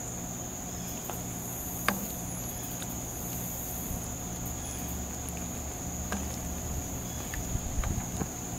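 A wooden spoon stirring stew in a metal saucepan, knocking against the pot about two seconds in, again around six seconds, and a few times near the end, over a steady high drone of insects.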